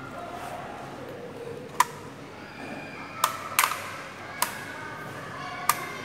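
Five sharp, short clicks, each with a brief ringing, at irregular spacing over a few seconds, against a faint steady background.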